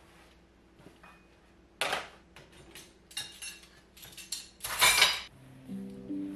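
Dishes and cookware clattering and clinking as a dishwasher is unloaded: a few separate knocks and clinks, some briefly ringing, with the loudest clatter about five seconds in. Light background music starts just before the end.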